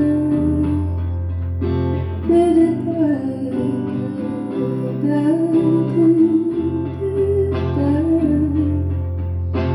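Live solo song played on guitar, with a wavering wordless melody line held over it.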